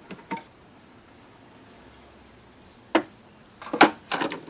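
Sharp clicks and knocks as the cabin air filter's retaining clips are released and the filter is handled: two light clicks at the start, a sharp click about three seconds in, and a louder cluster of clicks and rattles near the end.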